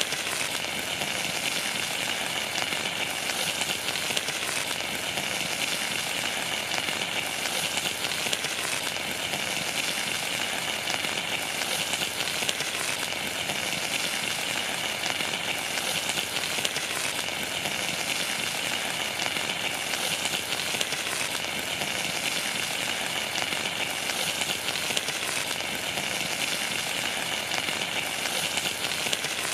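Foil-wrapped fish sizzling steadily on a pan of molten lava rock, with fine crackling.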